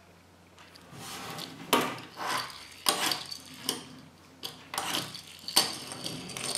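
Small plastic toy motorcycle handled and pushed across a wooden tabletop: a run of scraping rubs with several sharp plastic clacks, starting about a second in.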